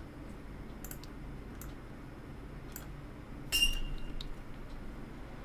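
A few scattered, separate clicks at a computer, over faint steady hiss; the loudest comes about three and a half seconds in, with a brief high ring.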